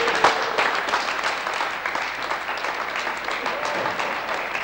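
A group applauding: many hands clapping in a dense, irregular patter, with a few voices underneath.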